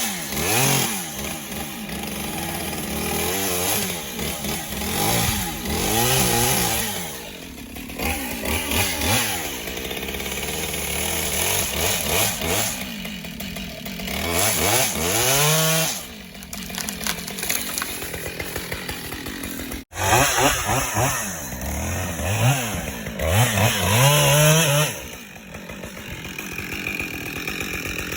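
Husqvarna chainsaw cutting a dead tree, its two-stroke engine revving up and dropping back again and again as the throttle is worked. The sound breaks off abruptly about 20 seconds in and starts again straight away.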